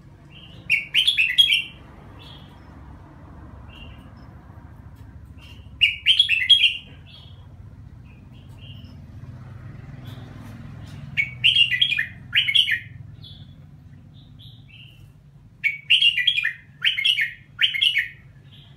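Caged red-whiskered bulbul singing: four bursts of quick, chattering song phrases a few seconds apart, the last a run of three or four phrases, with soft single chirps in between. A low steady hum runs underneath.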